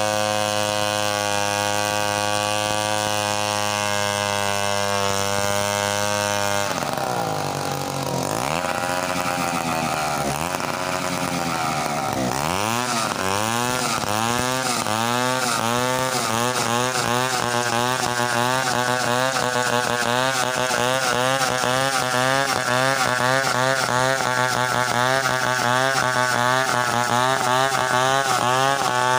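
Stihl two-stroke chainsaw ripping lengthwise along a felled coconut palm trunk, milling it freehand into lumber. The engine runs at a steady pitch, then about seven seconds in its pitch drops and wavers under the load of the cut. From about twelve seconds on it rises and falls over and over as the cut goes on.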